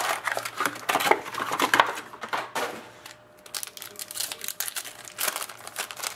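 Foil wrapper of an SPx hockey card pack crinkling and tearing as it is opened by hand. The crinkling is dense for the first three seconds, eases off, and comes back briefly about five seconds in as the cards are pulled out.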